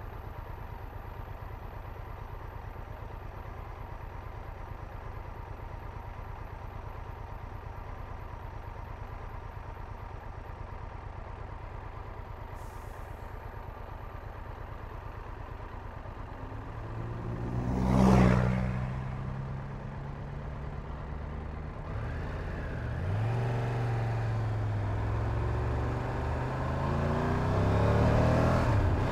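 Triumph Tiger 1200 Rally Pro's three-cylinder engine idling at a standstill, with a vehicle passing close by about 18 seconds in as the loudest sound. From about 22 seconds the motorcycle pulls away, its engine rising in pitch and growing louder.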